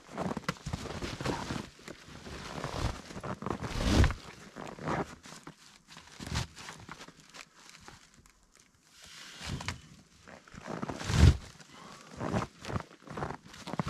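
Rope being pulled and cinched over a tarp-covered load on a plastic freight sled, with tarp rustling, scuffing and boots in snow. Two louder bumps stand out, one about four seconds in and one past the middle.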